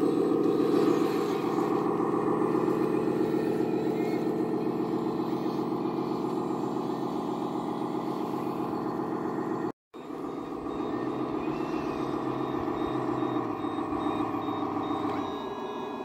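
Engine sound of an RC Volvo articulated dump truck running steadily under load, broken by a brief dropout about two-thirds of the way in. Near the end the engine sound drops and a high repeating reversing beeper starts as the truck backs up.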